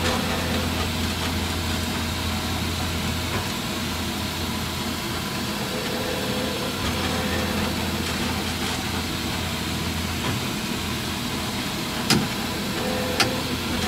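3D printer running on its first layer: NEMA 23 stepper motors driving the gantry through high-helix lead screws, a steady low hum whose level shifts as the moves change. Two clicks near the end.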